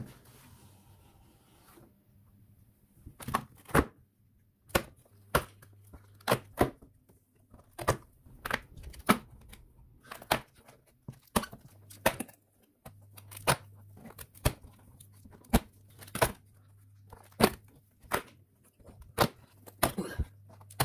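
Perforated cardboard doors of an advent calendar box being pressed in and torn open: a run of short, sharp snaps and tears, about one or two a second, starting a few seconds in.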